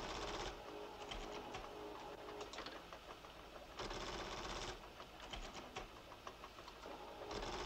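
Sci-fi computer sound effect: a mechanical chattering in bursts about a second long, about every three and a half seconds, with scattered ticks between them.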